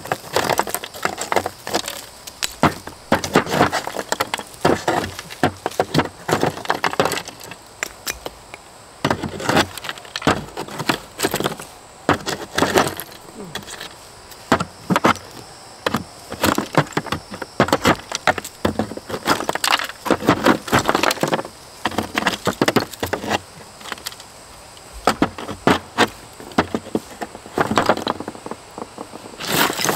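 Cured mortar being chipped and pried out of the ribbed underside of a plastic shower base with a hand tool: irregular runs of sharp knocks and cracking, with chunks breaking loose and short pauses between runs.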